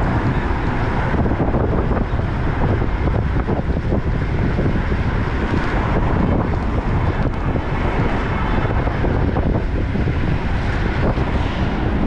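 Steady wind rushing over the microphone while cycling, with road traffic running underneath.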